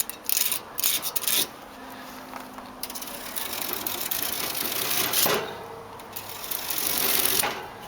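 A fin-straightening tool scraping through an air-conditioner condenser's thin metal cooling fins, in short rasping strokes: three quick ones in the first second and a half, then single strokes about five and seven and a half seconds in.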